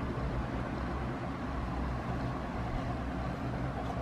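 Steady low background rumble and hiss with no distinct events.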